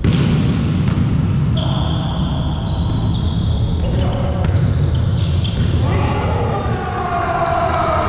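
Indoor volleyball play on a court: short high squeaks from sneakers on the floor and several sharp ball hits, over the echoing rumble of a large hall with voices in it.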